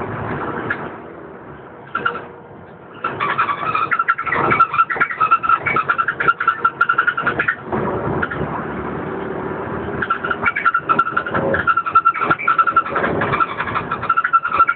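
Cabin noise of a DAF DB250LF double-decker bus on the move: engine running, with interior panels, poles and windows rattling and a steady high whine. It goes quieter for a moment about a second in, then the rattling picks up again.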